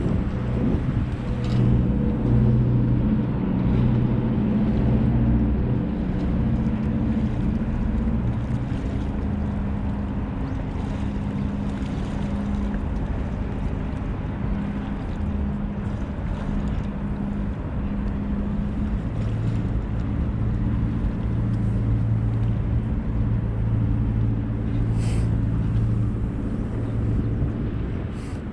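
Steady drone of a boat engine on the river, its pitch shifting slowly as the boat passes, over a background of wind and water noise.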